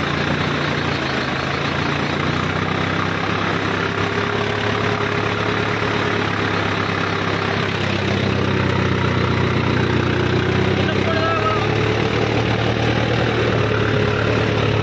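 Mahindra Arjun Novo 605 DI 4WD tractor's four-cylinder diesel engine running steadily, getting a little louder about eight seconds in.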